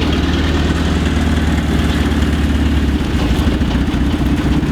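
Mini truck engine idling steadily, with a small shift in its low note about three seconds in.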